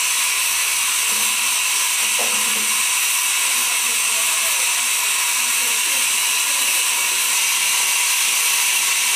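Steam hissing steadily from the safety valve of a small narrow-gauge steam locomotive as it blows off, a sign that the boiler is at full working pressure.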